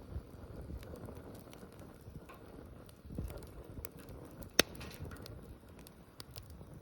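Bonfire crackling: scattered small pops over a low rumble of flames, with one sharp, loud pop about two-thirds of the way through.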